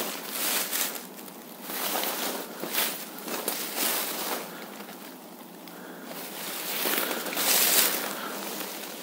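Footsteps crunching and shuffling through dry fallen leaves, with brush rustling, heard as irregular surges of noise. The loudest surge comes near the end.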